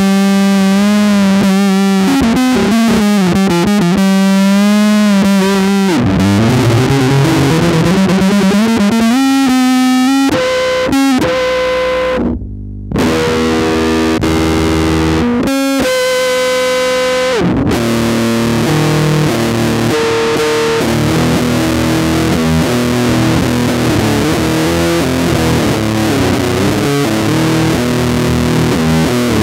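Distorted heavy metal with electric bass: a bass cover played over a metal track, with a short break about twelve seconds in where the top end drops out.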